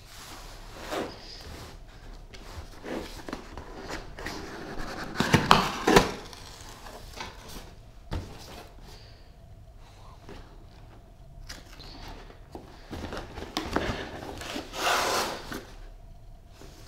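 Box and packaging being handled during an unboxing: scattered clicks, knocks and rustling. There are a few sharp knocks about five to six seconds in and a longer rustle near the end.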